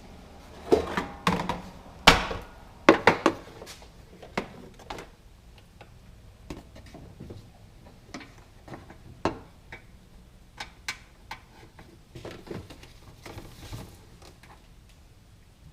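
Hand tools and car parts being handled: a quick run of sharp knocks and clatter in the first four seconds, then scattered single clicks and taps.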